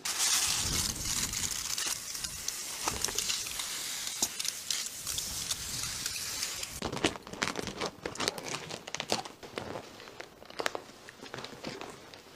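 Garden hose spray nozzle jetting water onto a pumpkin, a steady hiss that stops about seven seconds in. After it come scattered clicks and rustles of handling.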